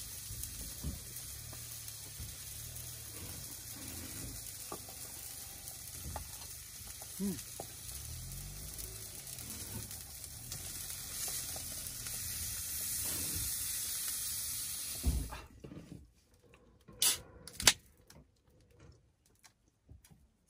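A steady sizzling hiss that stops abruptly about fifteen seconds in, followed by quiet with a few sharp clicks.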